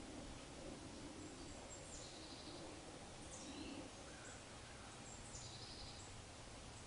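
Faint birdsong: several short high chirps and brief trills from small birds, scattered over a steady background hiss.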